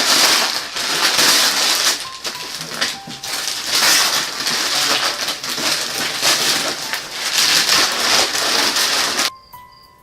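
Gift wrapping paper being torn and crumpled off a box: a loud, dense crackling rustle that cuts off abruptly near the end.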